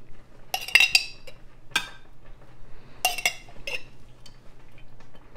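A metal spoon clinking and scraping against a glass canning jar and a glass baking dish while marinara sauce is scooped and spread. The clinks are sharp and ringing and come in a few small clusters: about half a second in, near two seconds, and around three seconds.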